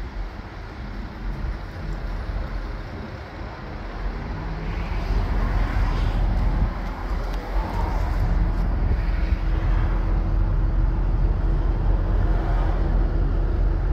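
Detroit DD13 12.8-litre turbocharged inline-six diesel of a 2015 Freightliner Cascadia idling with a steady low rumble, growing louder from about four seconds in and holding level from about ten seconds on.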